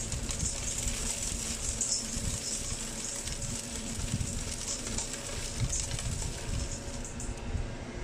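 Cracked cacao nibs and husk trickling from a stainless steel bowl onto the sloped board chute of a DIY cacao winnowing machine, a steady fine patter over the constant hum and air rush of its 4-inch blower fan. The trickle stops near the end.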